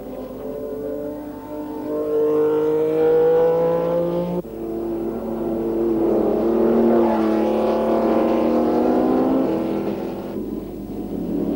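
Sports racing car engines running hard at speed. The pitch rises slowly over the first four seconds. Then, about four and a half seconds in, the sound cuts abruptly to another car's engine at a steadier pitch, and it changes again near the end.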